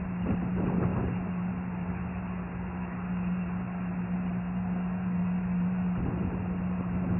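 Engine of a Bayliner Ciera Sunbridge 2155 sterndrive cabin cruiser running steadily at low speed as the boat eases back from the bank, a constant even hum.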